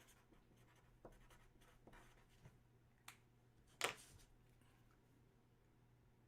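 Near silence with a low steady hum and a few faint clicks and rustles of things being handled on a table, the loudest a sharp click about four seconds in.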